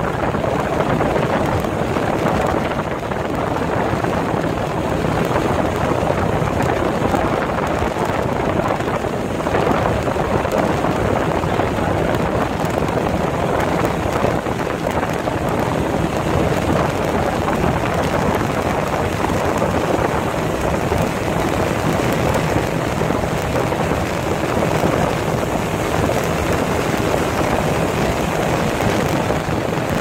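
Small motorboat under way on a river: the engine's steady drone mixed with water rushing along the hull, loud and unchanging throughout.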